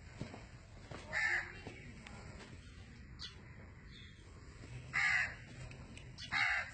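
Three short, harsh animal calls, about a second in, about five seconds in and again near the end.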